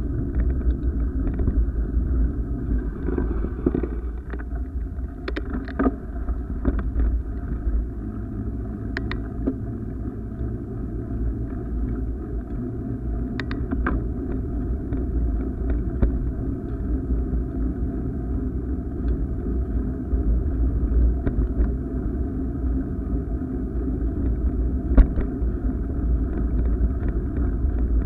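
Steady low rumble of wind and motion noise on a camera moving along a paved path, with a few short sharp clicks and knocks scattered through it.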